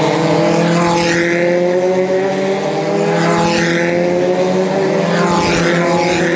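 Formula E race cars going by on the circuit: a loud, steady drone that slowly rises in pitch, with a higher whine that swells and fades three times as cars pass.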